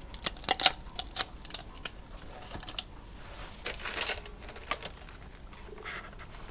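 Handling noise as gloved hands take hold of a canvas on a plastic drop cloth: a quick run of light clicks and taps in the first second or so, then a brief rustle about four seconds in, with a few faint ticks after.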